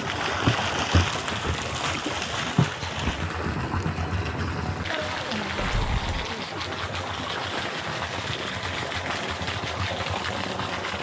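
Pool water sloshing and splashing close to the microphone as a person floats and paddles in the pool, with a few short knocks in the first three seconds.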